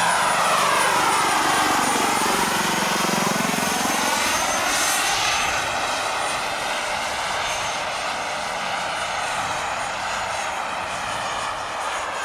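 Two large-scale RC Bell JetRanger helicopters flying past, their model turbine engines giving a steady high whine over the rotor noise. The tone sweeps down and back up in the first five seconds as they pass.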